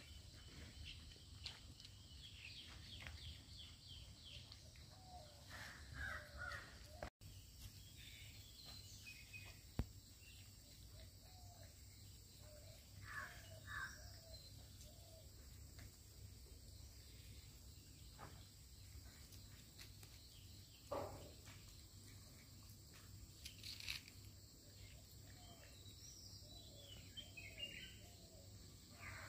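Faint sounds of a dog eating fish from a stainless steel bowl: soft chewing and licking with scattered clicks, and one sharper clink near ten seconds in. A few bird calls sound in the background.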